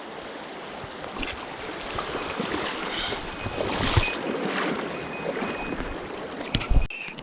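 Mountain stream water rushing steadily, with a few short knocks and clicks of close handling.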